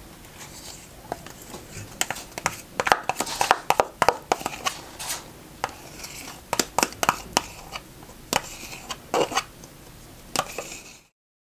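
Metal spoon scraping quark out of a plastic tub and knocking against the tub and a ceramic bowl: a run of sharp clicks and taps with scraping between them. The sound cuts off suddenly near the end.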